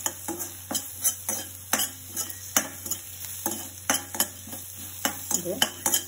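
A spatula stirring and knocking against a frying pan in irregular taps, about two a second, over a steady sizzle of oil as shallots, chilli flakes and turmeric fry.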